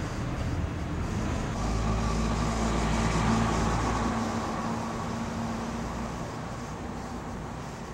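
A vehicle engine running close by with a steady low hum that is loudest about two to three seconds in and then fades away.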